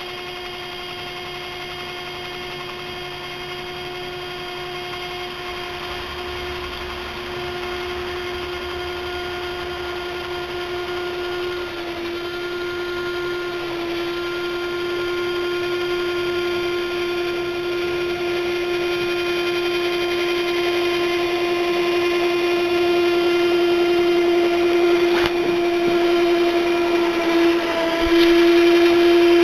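12-volt battery drill spinning a vacuum-cleaner impeller in a homemade rotary snowplow for a G-scale model train: a steady high motor whine that grows gradually louder and wavers briefly near the end.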